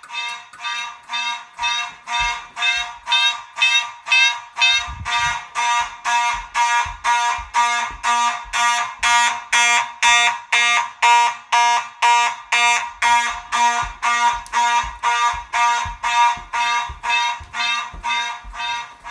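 Mechanical fire alarm horn sounding the march-time alarm signal: loud buzzing blasts pulsed on and off evenly, about two and a half a second.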